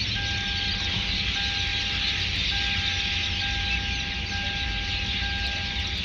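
A steady, high-pitched electronic tone held almost without a break, over a steady low hum and hiss.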